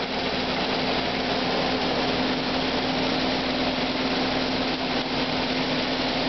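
Kason Vibroscreen vibratory screener with air classifier running: a steady machine hum with one constant low tone over an even hiss of air.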